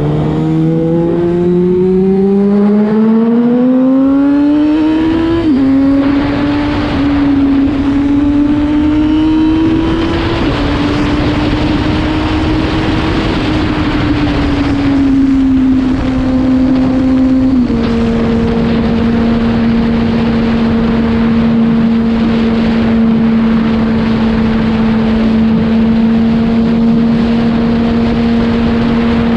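Yamaha FZ6 inline-four with a LeoVince aftermarket exhaust accelerating, its note rising over the first few seconds with brief dips at gear changes, then holding a steady cruise from a little past halfway, under constant road and wind noise.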